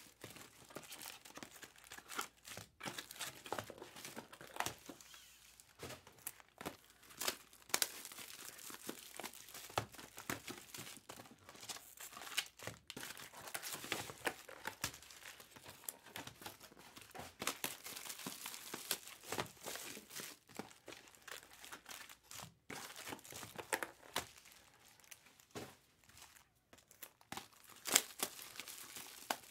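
Foil trading-card pack wrappers crinkling and tearing as Topps Chrome packs are ripped open, in a dense run of irregular crackles.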